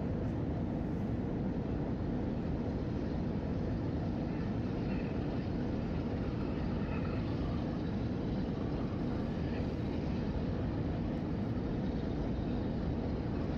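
Steady, even rumble of a jet airliner's engines, unchanging throughout.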